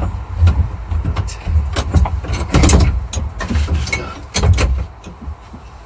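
Workbench handling noises: a run of irregular knocks, clunks and clicks over a low rumble, easing off near the end.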